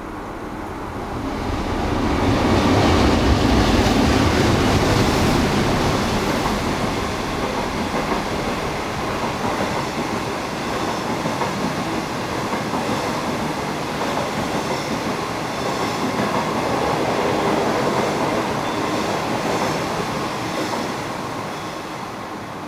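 A DF11 diesel-electric locomotive hauling a train of 25Z passenger coaches runs past. The engine's deep rumble swells in about a second in and is loudest soon after. The coaches' wheels then run on with steady rail noise and clicks, fading as the train draws away near the end.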